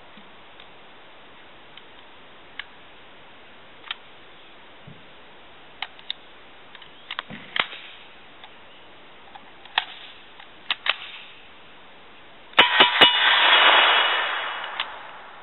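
Scattered metallic clicks of the Uzi being handled, then about two-thirds in, three quick suppressed semi-automatic shots from a Group Industries short-barrelled Uzi, followed by a ringing echo that fades over about two seconds.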